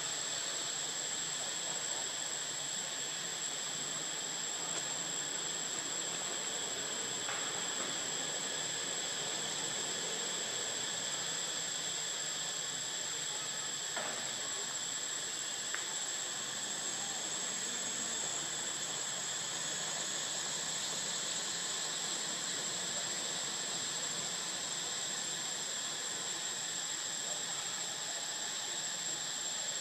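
Steady, high-pitched drone of insects over an even hiss of forest ambience, unchanging throughout, with a few faint clicks near the middle.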